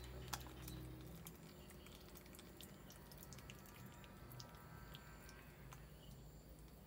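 Near silence: faint low room hum with scattered soft clicks.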